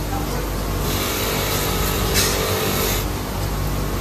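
Machinery running with a steady low hum and noise, with a short sharp hiss about two seconds in.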